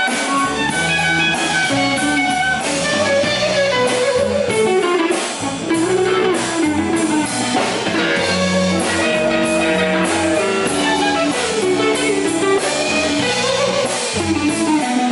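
Live blues band playing an instrumental passage: a Stratocaster-style electric guitar leads with bending notes over drum kit and bass guitar.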